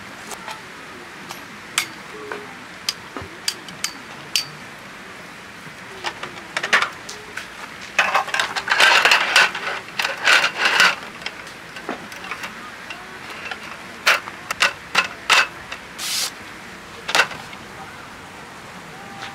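Folding aluminium camp table being assembled: the metal frame clicks and knocks, and about eight seconds in the roll-up slatted tabletop rattles for a few seconds as it is laid out and pressed down onto the frame. This is followed by a handful of sharp clicks.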